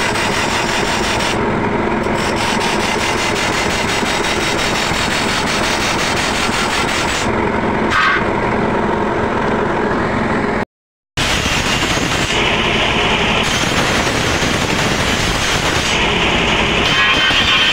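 Electric bench grinder running steadily while its wheel grinds a steel chaff-cutter blade in spells, a harsh scraping hiss that stops each time the blade is lifted off and the motor hums on alone.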